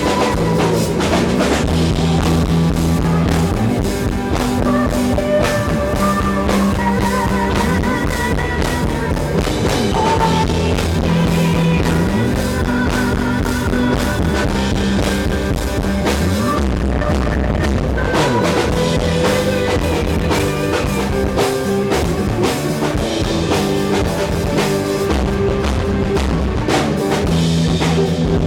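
Live rock band playing at full volume: a drum kit keeping a steady beat under electric guitars and bass, with long held notes.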